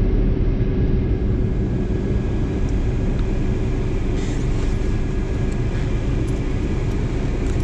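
Taxi driving along, heard from inside the cabin: a steady low rumble of engine and road noise with an even hum.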